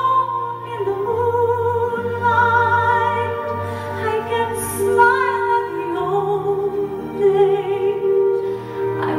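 Slow music with a woman singing long, wavering held notes over a sustained accompaniment.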